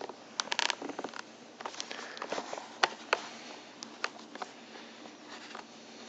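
Scattered small clicks and scrapes of a screwdriver working a small Phillips screw out of a motorcycle helmet's plastic inner liner, mixed with handling noise from the helmet and a hand-held camera. The sharpest click comes about three seconds in.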